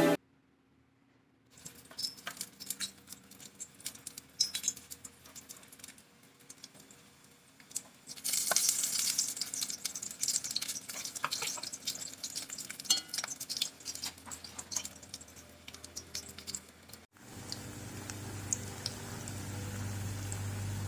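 Kitchen cooking sounds: scattered clinks and scrapes of utensils and dishes, then food sizzling in a pan for several seconds with clicks over it. After a sudden cut, a steady low hum.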